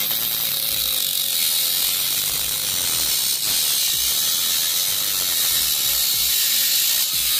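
Homemade angle grinder driven by a 775 DC motor, its cut-off disc grinding into a metal pipe: a steady, harsh grinding hiss with the motor's low hum beneath it.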